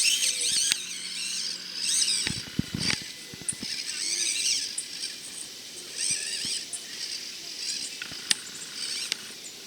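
Axial SCX24 micro crawler's small electric motor and gears whining in short stop-start bursts as it is throttled over rocks, the pitch wavering with speed, with a few sharp clicks and knocks.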